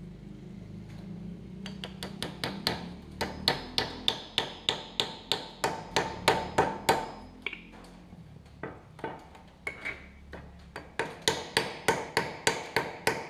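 Hammer blows tapping an oak wedge into the split top of a hickory axe handle, about three blows a second, each with a short ringing tone. Driving the wedge in swells the handle tight inside the axe head's eye. The blows ease off and go softer for a couple of seconds in the middle, then pick up again near the end.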